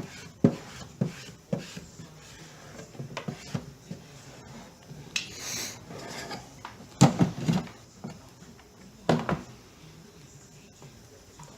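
Hands working a vinyl graphics decal onto an RC jet boat hull: scattered knocks, taps and rubbing against the hull, the loudest a cluster about seven seconds in and another knock about nine seconds in, with a brief rasping rustle around five to six seconds in.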